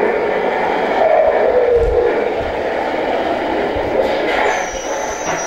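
Radio-controlled Kenworth tractor-trailer model driving, its steady droning engine sound gliding down in pitch about a second in.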